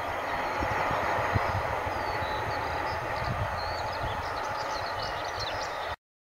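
Cement freight train running on the line, a steady rumble and rail noise, with birds chirping over it; the sound cuts off abruptly near the end.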